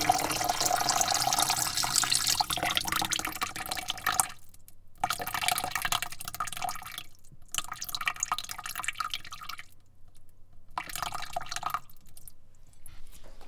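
Water spraying into a bucket. It runs steadily for about four seconds, then cuts off and comes back in three shorter spurts with brief pauses between, fading out near the end.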